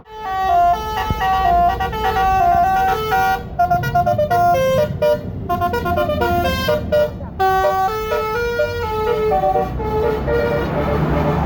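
A bus's multi-tone telolet horn playing a fast melody of many short notes that step up and down in pitch, over a low rumble.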